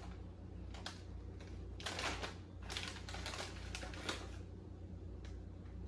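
Foil bag of Lay's chips crinkling in the hand, a series of short crackles as it is lifted, shaken and reached into for a chip.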